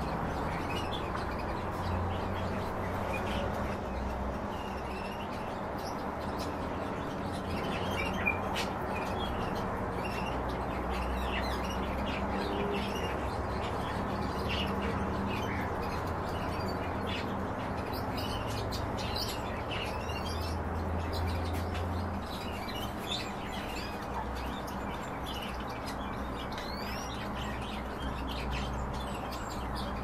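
Cage birds chirping: many short, scattered high calls over a steady low hum.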